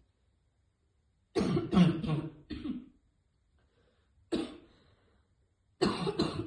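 A woman coughing hard after choking on vape vapour: a fit of about four coughs, a single cough, then another run of coughs near the end.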